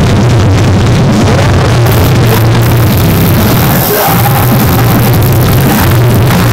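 Loud rock music playing, with a steady low buzz under it.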